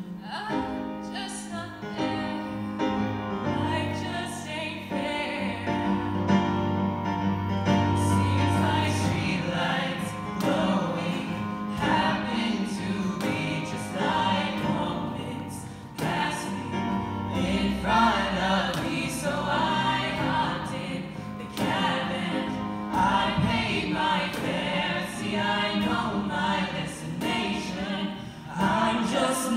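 Small mixed group of male and female singers performing a song in harmony, accompanied on keyboard.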